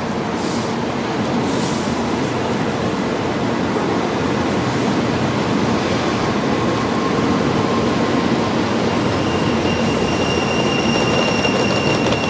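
An N700 Shinkansen rolling past the platform as it pulls into the station, a steady rush of noise from the passing carriages. A thin high whine joins about nine seconds in.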